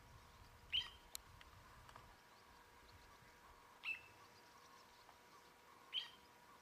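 A bird giving a short, sharp call three times, about two seconds apart, over a faint steady hum. A low rumble underneath stops about two seconds in.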